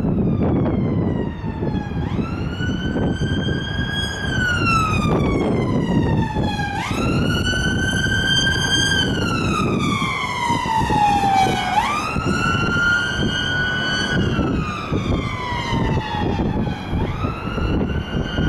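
Ambulance siren on a West Midlands Ambulance Service Fiat Ducato, sounding a slow wail: the tone jumps up sharply about every five seconds, four times, then slides slowly down. Traffic noise and wind on the microphone run underneath.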